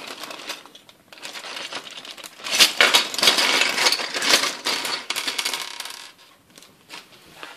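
Small plastic Playmobil furniture parts clattering as they tip out of a crinkling plastic bag onto a table, busiest in the middle and trailing off near the end.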